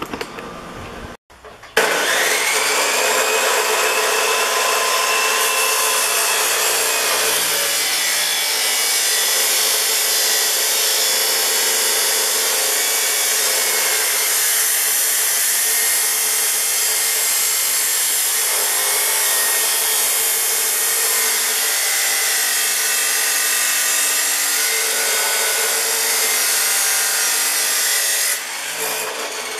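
Abrasive chop saw spinning up with a rising whine, then running steadily as its disc cuts through 2x2 square steel tubing. Near the end it is switched off and the level drops as it winds down.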